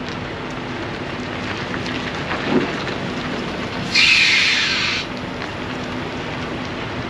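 A semi truck and flatbed trailer rolling slowly, with the steady noise of its running diesel engine and tyres. About four seconds in comes a one-second burst of hissing air from the truck's air brakes.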